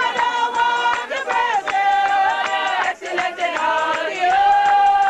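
A group of voices singing a hymn together, with long held notes that glide from one to the next.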